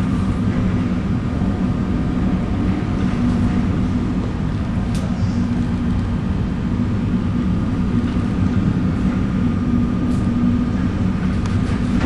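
A ship's engines and machinery running with a steady low drone, a faint higher whine above it and a couple of faint clicks.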